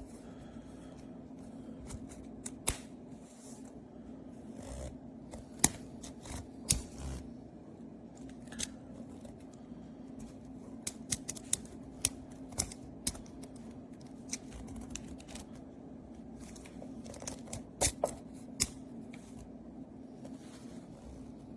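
Irregular sharp clicks and small handling knocks from hardware being handled, over a steady low hum.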